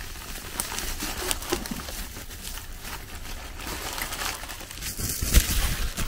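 Bubble wrap and plastic packaging crinkling and rustling as it is pulled off a mug, with a single dull thump about five seconds in.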